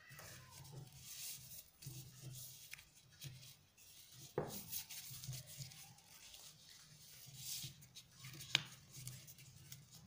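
Paper rustling and crinkling as hands fold and crease a paper airplane, with two sharp taps, one about halfway and a louder one near the end.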